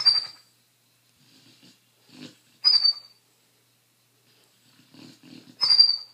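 Beagle snoring in its sleep: each breath is a low fluttering rattle followed by a loud burst with a high, slightly falling whistle. The cycle repeats about every three seconds, with loud bursts at the start, about halfway through and near the end.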